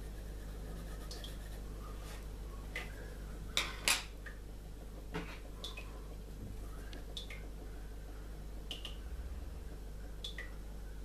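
Two sharp clicks of a pencil being put down and another picked up on a wooden desk, a little under four seconds in, over a steady low hum. Faint short high clicks recur about every second and a half.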